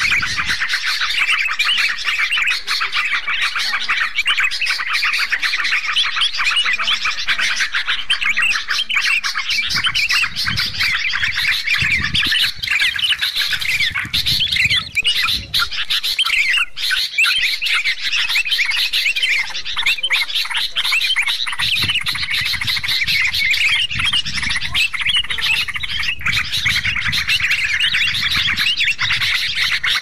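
Dense, continuous chorus of bulbul calls, yellow-vented bulbuls (trucuk) and sooty-headed bulbuls (kutilang) chattering over one another as a bird-lure recording. A low rumble runs underneath for stretches in the middle and latter part.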